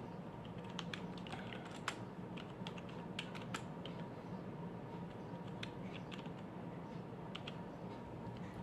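Typing on a laptop keyboard: irregular light key clicks, some in quick runs, over a steady low hum.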